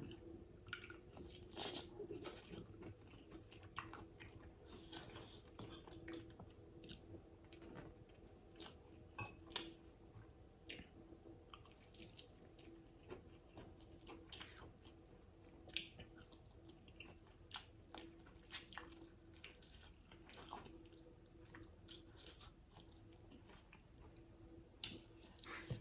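Faint chewing with small wet mouth clicks and smacks, scattered irregularly, as a person eats fish soup and gnaws the flesh off fish bones. A faint steady hum lies underneath.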